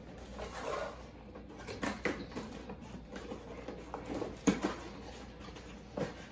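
Cardboard box being handled and its top flaps pulled open: light rustling with scattered soft knocks, a few sharper ones about two seconds in, four and a half seconds in and near the end.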